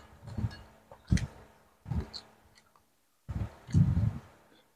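Close-up eating sounds: a man chewing and smacking his lips in a few short bursts, with light clicks of a spoon against a plate.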